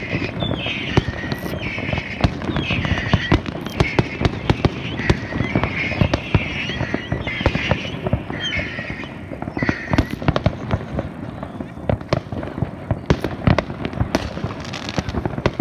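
Fireworks going off in a dense, continuous string of sharp bangs and crackles.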